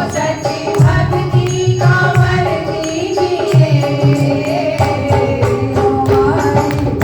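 Devotional bhajan music: a melody line over a steady drum beat with shaken jingles and sharp percussion strokes, without clear words.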